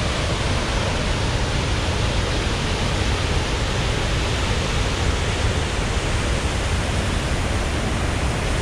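Waterfall swollen with rainwater: a steady, unbroken rush of falling water, heaviest in the low rumble.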